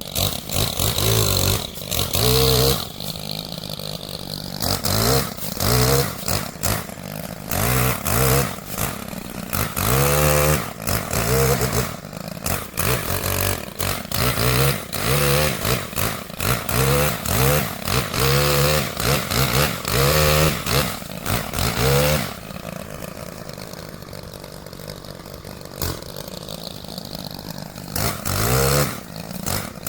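Chainsaw revved in short repeated bursts, each rising in pitch and dropping back, for about twenty seconds. It then runs lower and steadier for several seconds before a few more bursts near the end.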